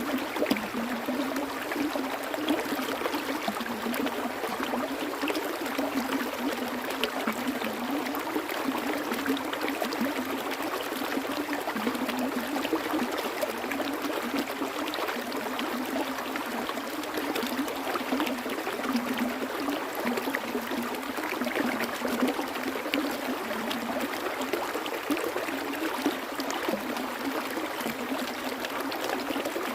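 Flowing water: a small stream running steadily, with constant fine splashing and bubbling and no deep rumble.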